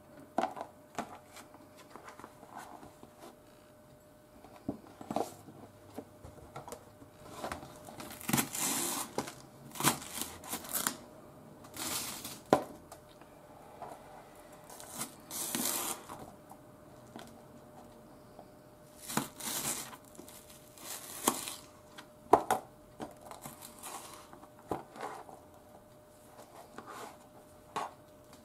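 Kitchen knife tapping and clicking on a cutting board as wakame and then a green onion are chopped, broken by several short bursts of crinkling and rustling, like handling a plastic wrapper.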